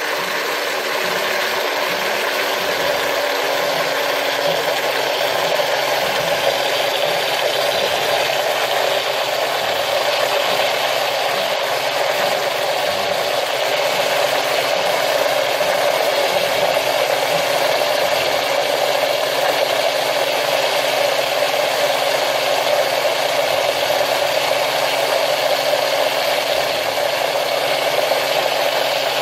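Electric blender motor running steadily as it blends eggs, garlic and oil into a thick mayonnaise.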